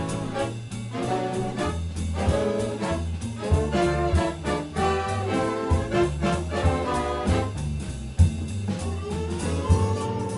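Swing big band playing live: brass-section chords and lines over a steady bass and drums, with drum accents punching through now and then.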